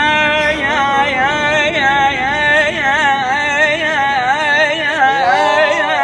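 A young man singing a long, ornamented wordless run in Arabic style, the voice held and wavering up and down in pitch with heavy vibrato.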